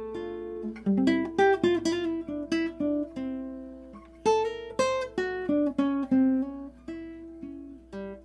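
Nylon-string classical guitar played fingerstyle: a melody of plucked notes over ringing bass notes, with a quick run of notes about a second in.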